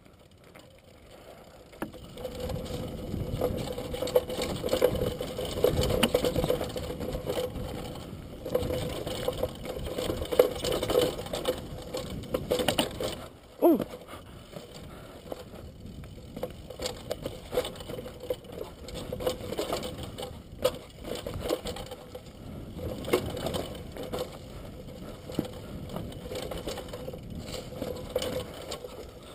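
Downhill mountain bike rattling and clattering as it rolls down a rough dirt trail, tyres crunching over dirt and loose stones with many small knocks from bumps. The sound starts quiet and picks up about two seconds in as the bike gets going, and one short falling squeal comes partway through.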